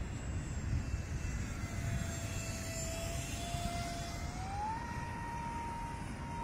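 Faint whine of an RC glider's electric motor and propeller, with its pitch stepping up a little over four seconds in as the throttle opens, over a low rumble of wind and background noise.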